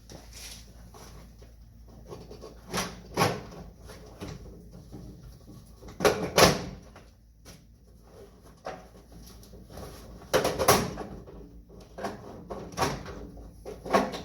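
Irregular knocks, clunks and rattles of a truck door's hardware and trim being worked loose by hand, the loudest about six and ten seconds in.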